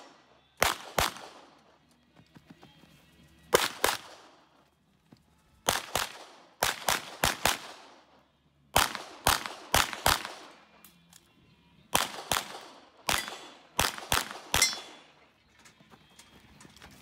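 CZ Shadow 2 9mm pistol fired in quick pairs (double taps), about a dozen pairs with pauses of one to two seconds between groups. Each shot is a sharp crack with a short echo.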